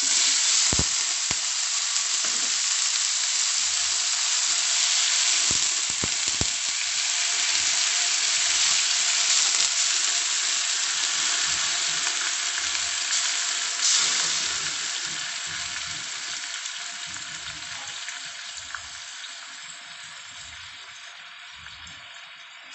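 Raw chicken pieces sizzling in hot oil in a wok with sautéed ginger, garlic, onion and chili. There are a few knocks in the first seconds and a fresh burst of sizzling about halfway through, after which the sizzle slowly dies down.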